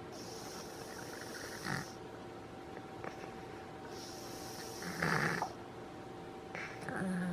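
A sleeping pet snoring in slow breaths, with a rasping snore about every two to three seconds. The loudest snore comes about five seconds in.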